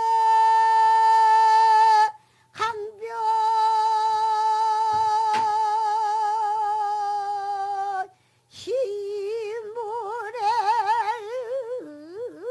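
Female pansori singer holding long sung notes, the second sinking slightly in pitch. After a short break, a wavering note with a wide, deep vibrato begins about nine seconds in.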